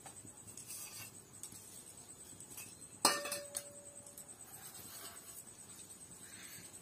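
Stainless-steel kitchenware clinks once about three seconds in, leaving a short ringing note; otherwise only the faint sound of a hand mixing spice powder into food in a steel pot.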